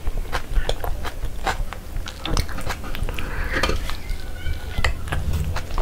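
Close-up eating sounds: the chicken burger being handled and chewed, with many short, sharp wet mouth clicks.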